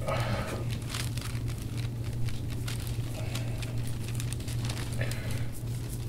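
Deep-tissue massage on a bare back: forearm and elbow pressing and rubbing on skin, with many small crackling clicks over a steady low hum. A soft rushing sound comes at the start and again about five seconds in.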